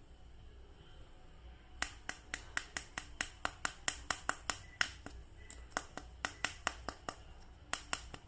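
A rapid series of sharp clicks, about four to five a second, starting about two seconds in, with a brief pause near the end.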